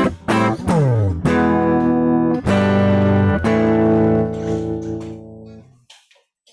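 Electric guitar: a few quick picked notes, a note gliding down in pitch, then three chords struck, the last left to ring and fade out near the end.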